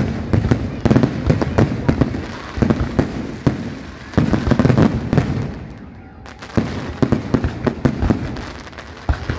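Aerial fireworks going off in rapid barrages of bangs and crackling, with a short lull a little past halfway before the bursts pick up again.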